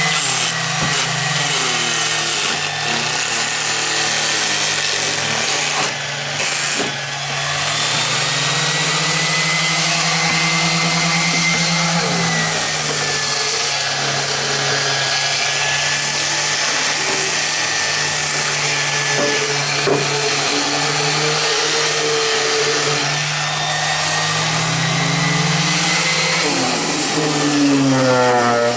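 Electric orbital sander with a hook-and-loop sanding disc running over a wooden ammo crate, knocking the dirt off the old wood. A steady motor hum under the hiss of the disc on the boards, with a brief dip about six seconds in.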